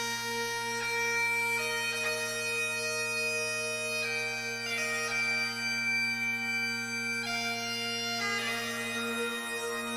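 Bagpipe music: a slow melody of held notes that change every second or so, over steady drones.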